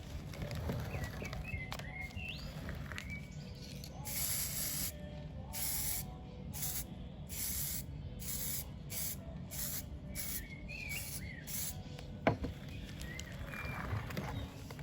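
Aerosol spray can sprayed in about a dozen short hissing bursts, the first and longest about four seconds in, the rest quicker. A single sharp click comes near the end.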